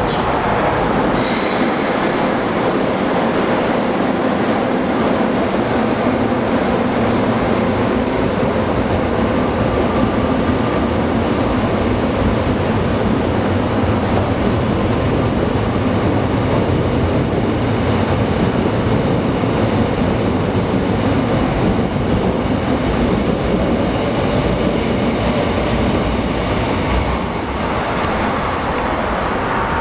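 Seoul subway trains running through a station, with a steady rumble of wheels and traction motors on the rails. Near the end a high-pitched wheel squeal sets in as a train comes in.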